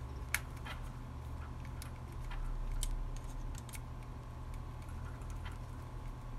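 Small screwdriver turning screws into the plastic cover of a monkey flashlight keychain: scattered faint clicks and light ticks, over a steady low hum.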